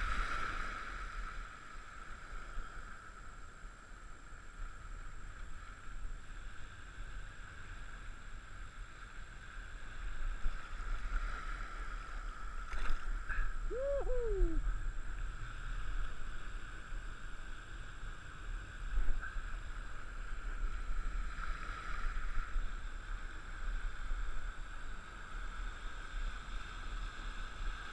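Water lapping and sloshing steadily around a wading angler's legs in the shallows, with wind rumble on the microphone. A single short falling cry sounds once about halfway through.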